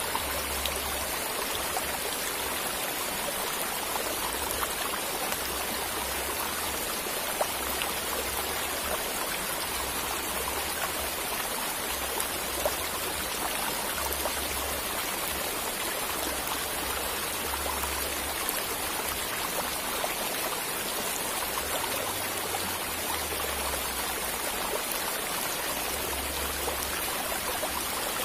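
Steady rush of flowing stream or river water, an even noise with small scattered ticks.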